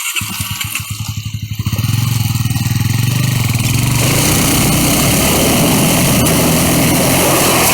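Single-cylinder 250 cc enduro motorcycle engine coming in abruptly at low revs with distinct firing pulses, then opened up about two seconds in and held at high, steady revs.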